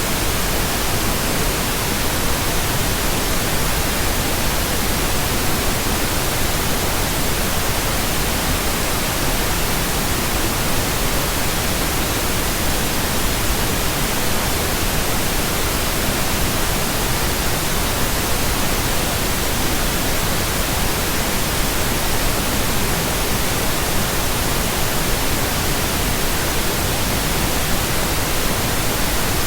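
Generated pink noise: a steady, even hiss that does not change.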